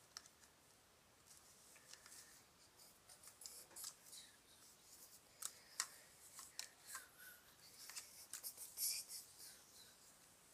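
Faint, irregular clicking and rustling of small plastic parts being handled and tried in place, growing busier after the first few seconds.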